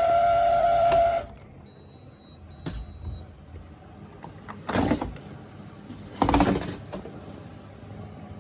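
Beko DSX83410W heat-pump tumble dryer's condensate pump, feeding the water tank, humming loudly at a steady pitch; it cuts off suddenly about a second in. After that come a few short knocks and rubbing sounds, the loudest near the end.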